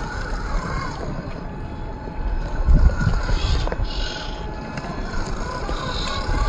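Low wind rumble on the microphone, heaviest about three seconds in, over the faint wavering whine of an RC rock crawler's electric motor and gears as it climbs the rocks.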